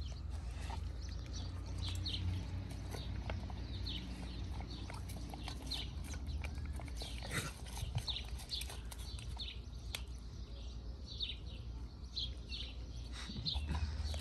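Pit bull eating boiled ground beef from a stainless steel bowl: chewing and lapping, with irregular clicks as its muzzle and the food knock against the metal bowl.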